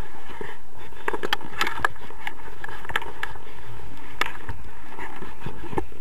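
Wind rushing over an action camera's microphone in flight under a paraglider, a steady noisy rush broken by irregular clicks and knocks.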